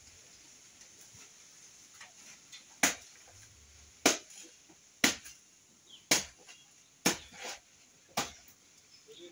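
Chopping into a banana plant's stem during harvesting. There are six sharp strokes at a steady pace of about one a second, starting about three seconds in.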